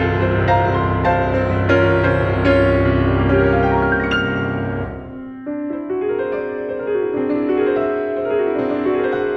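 Background music led by piano, with a steady run of notes over a full low accompaniment that drops out about halfway through, leaving the piano alone.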